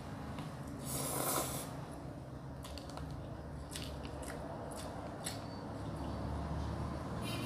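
A person eating instant cup noodles: a slurp of noodles about a second in, then chewing with wet mouth clicks and smacks, over a steady low hum.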